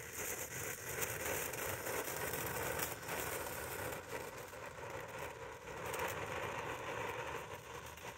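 Cutting Edge Fireworks Nite Siren small fountain firework burning, a steady hissing rush of spraying sparks that grows quieter near the end.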